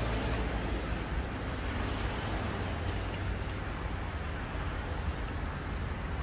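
Steady low background rumble, with a few faint light clicks of spoons and chopsticks against ceramic noodle bowls.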